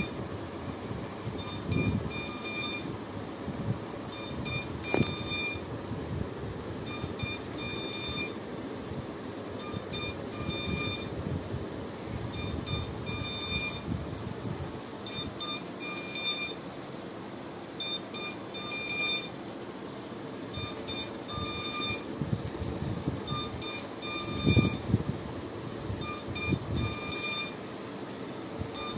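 Electronic beeper sounding groups of quick high beeps, each group about a second long, repeating every two to three seconds. Under it is a low rumble with a few bumps, the loudest about 25 seconds in.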